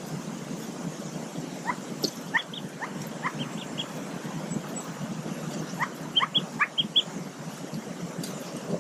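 Newly hatched mallard ducklings peeping under the brooding hen: short, high peeps, scattered, with a quick run of them about six to seven seconds in, over a steady low background noise.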